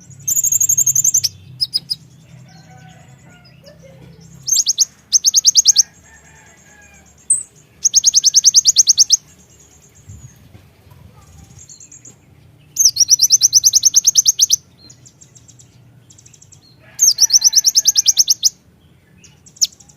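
A kolibri ninja (konin) sunbird sings in loud bursts of very fast, high, rattling trills, each lasting about a second, with gaps of a few seconds between them. A faint low hum runs underneath.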